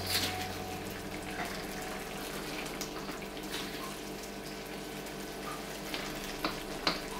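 Shrimp balado sauce simmering and sizzling in a wok as a ladle stirs it, with light scrapes and clicks of the ladle against the pan, a few sharper ones near the end.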